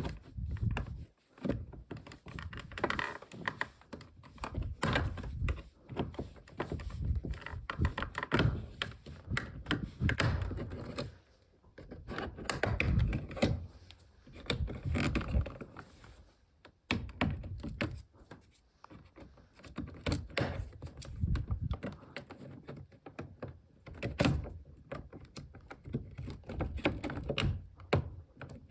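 Irregular knocks, clicks and thunks of hands and tools working on a Volvo S60's car door and its door handle parts, with short pauses between bursts of activity.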